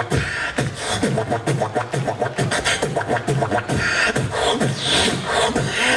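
Beatboxer performing into a handheld microphone through the stage sound system: a fast, steady rhythm of deep kick-drum sounds that drop in pitch, with snare and hi-hat clicks.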